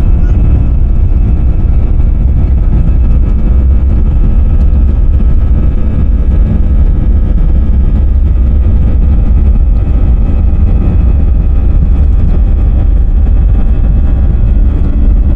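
Airliner engines running steadily at take-off power: a loud, even low rumble with a steady engine whine laid over it.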